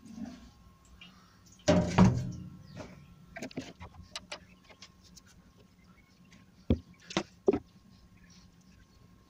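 A paint tin set down on the workbench with a loud clunk, followed by light clicks as the cup and tools are handled, then three sharp knocks close together as a stirring stick is picked up and put into the plastic mixing cup.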